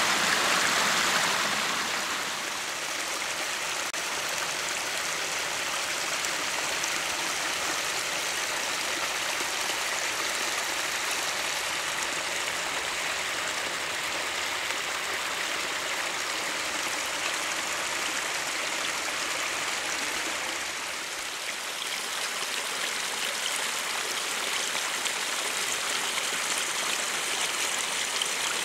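Small spring-fed brook trickling and splashing over stones, a steady rush of running water. It is a little louder for the first two seconds and dips briefly about twenty seconds in.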